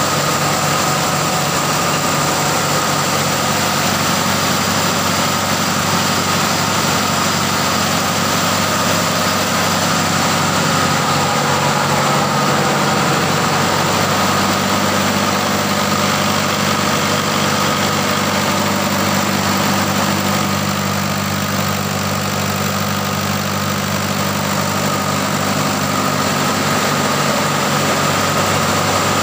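Marine diesel engines running steadily in a ship's engine room: a loud, unbroken drone with a steady whine on top. A new low hum joins about halfway through.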